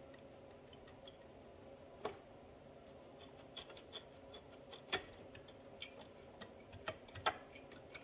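Faint scattered metallic clicks and ticks of a finned cylinder barrel being eased down over a piston with new rings and onto the studs of a Suzuki LT80 quad engine, with a few sharper taps about two, five and seven seconds in.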